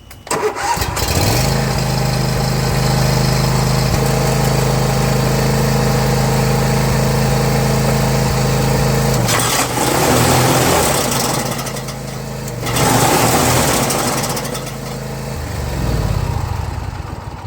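John Deere Z335E zero-turn mower engine starts and runs steadily. About nine seconds in the blades are engaged and a loud clickety clank comes from the mower deck in two surges, the sign of a busted blade spindle. The engine then winds down near the end.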